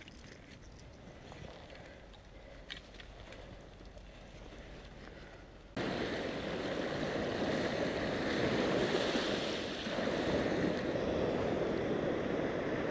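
Faint quiet handling with a couple of small clicks, then, about six seconds in, a sudden switch to a steady wash of sea surf breaking on the shore, with wind.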